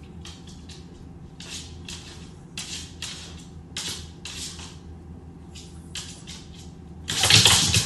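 A small dog's claws clicking and scraping on a hardwood floor in short, irregular scuffs as it walks and turns. Near the end a much louder burst of noise cuts in.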